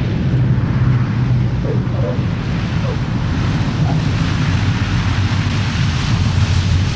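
Propeller aircraft engines running steadily, with wind noise on the microphone.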